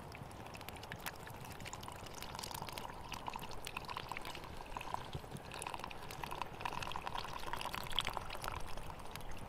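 Liquid poured in a thin stream from a small carton into a steel pot sitting in a campfire's coals, growing louder as the pot fills. A campfire crackles with scattered sharp clicks underneath.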